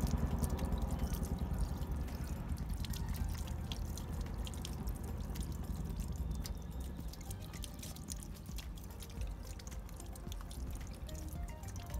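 Water spurting and spattering from a step-on dog water fountain as a puppy presses the paw pedal and drinks at the stream, with many small irregular splashes and drips over a low steady rumble.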